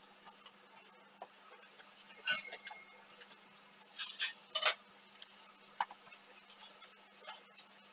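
Scattered metallic clinks and knocks as steel pieces are handled and set in place against a welded steel-plate frame, a few sharp strikes standing out about two seconds in and again around four seconds in.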